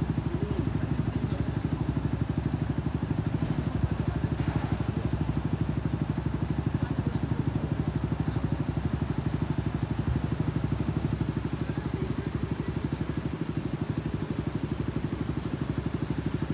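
A road vehicle's engine idling with a steady, rapid low throb.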